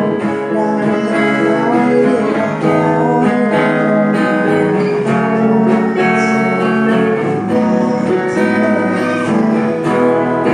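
Music led by strummed acoustic guitar, playing steadily throughout.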